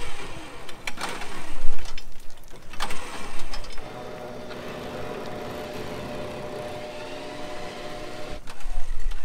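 Winch motor running steadily as it pays out a little cable to lower the truck down the slope. It comes in about four seconds in, after a few knocks and rustling, and stops shortly before the end.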